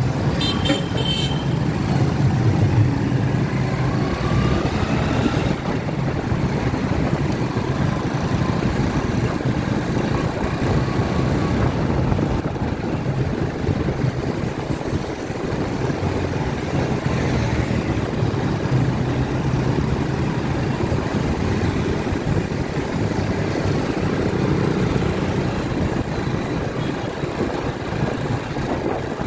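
Motorcycle engine running steadily while riding through city traffic, with road and wind noise; a vehicle horn toots briefly right at the start.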